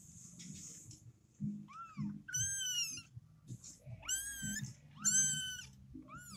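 Kittens meowing: about five high-pitched mews, each rising then falling in pitch, starting about a second and a half in, the longest lasting around half a second.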